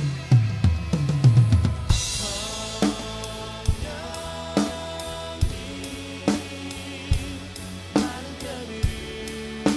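Acoustic drum kit playing along with music: a fast tom fill that falls in pitch over the first two seconds, a cymbal crash at about two seconds, then a steady groove with strong accents roughly every second over sustained backing tones.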